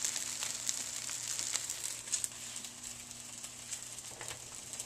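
Battered and breaded veal brain pieces frying in shallow oil in a pan: a steady sizzle with scattered crackles, thinning out after about two seconds.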